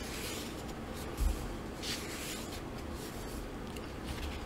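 Pages of a paperback book being turned by hand: two soft paper swishes, with a low bump just after a second in.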